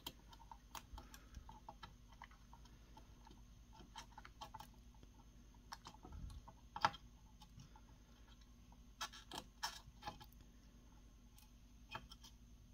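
Faint, scattered light clicks and ticks of a soldering iron tip and desoldering wick working a solder joint on a circuit board, with a sharper click about seven seconds in and a few more around nine to ten seconds, over a faint steady hum.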